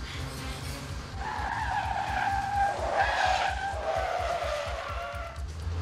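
Car tyres squealing as a police car skids through a turn. The squeal wavers, rises in about a second in, peaks in the middle and fades just before the end.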